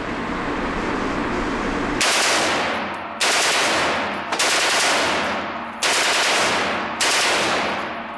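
HK G36KE 5.56 mm rifle firing: five loud blasts about a second apart, starting about two seconds in, each trailing off in the echo of the indoor range. Before the blasts there is a steady rushing noise.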